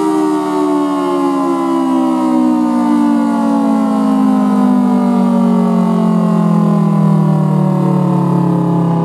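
Federal Signal Thunderbolt 1003B outdoor warning siren with a 4/5 chopper, loud and steady, sounding a two-tone chord whose pitch falls slowly and evenly throughout.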